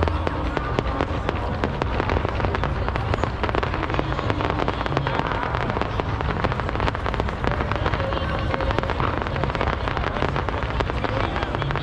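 Fireworks display going off: a steady, dense crackle of many rapid small pops and bangs.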